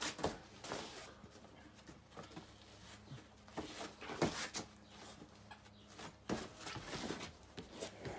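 A Great Dane moving about on a dog bed and the porch deck and grabbing a plush toy in its mouth: irregular short knocks and scuffs over a faint steady hum.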